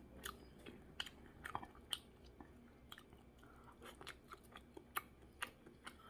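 A person chewing food close to the microphone: irregular soft mouth clicks and small crunches, several a second, over a faint background.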